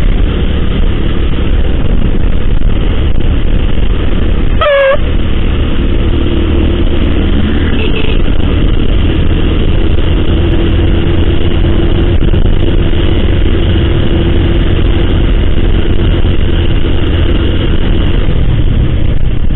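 Honda scooter being ridden at a steady speed: a continuous engine drone under heavy wind and road rumble on the microphone. About five seconds in there is one brief high tone.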